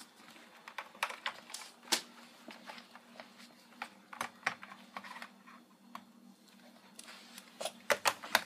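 Irregular light clicks and clacks of hard plastic toy figures and playset pieces being handled and set in place, over a faint steady hum.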